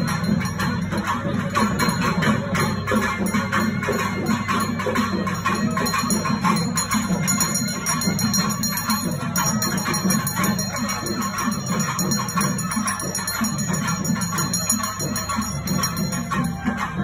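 Music with bells jingling, dense and unbroken.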